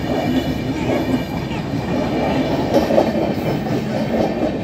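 Indian Railways passenger coaches rolling past, their steel wheels running on the rails with a steady, continuous noise.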